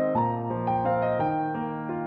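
Background music: a piano tune moving note by note about twice a second over held low notes.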